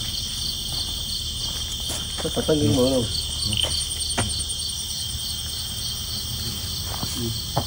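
Night chorus of crickets: a steady high trill with a pulsing chirp about three times a second. A brief voice is heard about two and a half seconds in.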